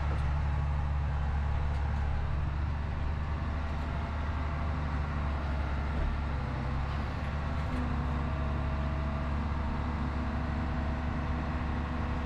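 Farm tractor's diesel engine running steadily, heard from inside the cab. A faint higher tone joins the engine hum about eight seconds in.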